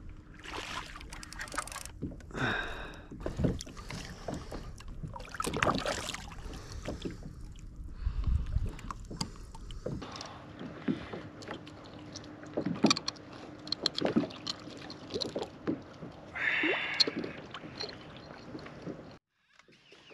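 Irregular knocks, clicks and rubbing of gear being handled on a plastic fishing kayak, with a faint steady hum underneath.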